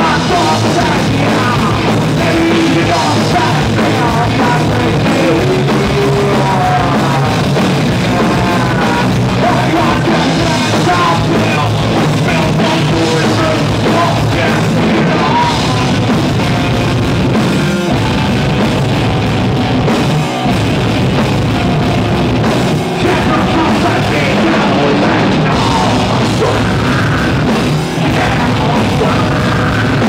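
Live rock band playing loud heavy punk-style rock: distorted electric guitars and a drum kit, with a singer's vocals over them.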